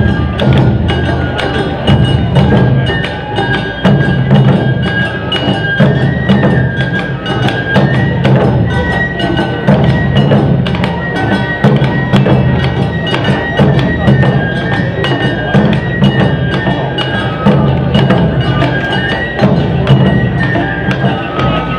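Live Awa odori festival music: a percussion ensemble of taiko drums and the clanging kane gong keeps a steady driving beat, with a high flute melody held over it.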